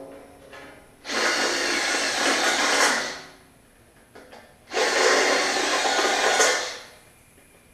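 Handheld power drill drilling out spot welds in the sheet-steel flange of a car quarter panel, in two runs of about two seconds each that fade away as the trigger is let off. A few faint clicks come between the runs.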